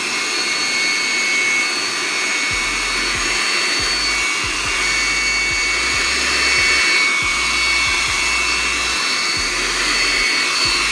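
Handheld electric blower from Jon Bhandari, set up as a vacuum with a nozzle pipe, running steadily and sucking up scraps of paper: an even motor-and-fan whine over rushing air.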